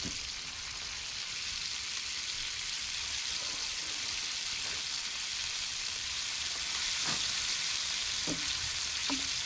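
Food sizzling steadily in a frying pan, growing slightly louder about seven seconds in.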